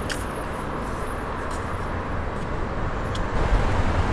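Steady city traffic noise, an even rumble and hiss that grows louder near the end.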